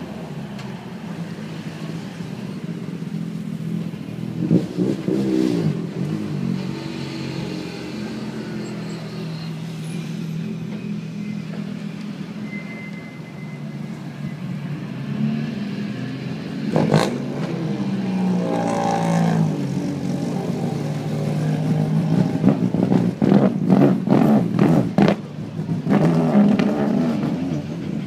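Rally car engines passing one after another at parade pace, revving up and falling away. One sharp crack comes about two-thirds of the way through, and a quick string of cracks near the end.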